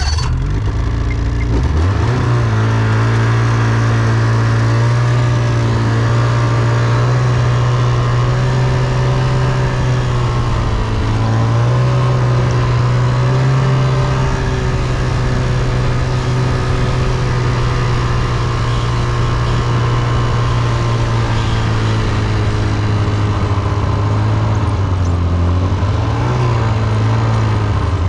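Motor vehicle engine running close by, its pitch rising and falling with the throttle as it drives.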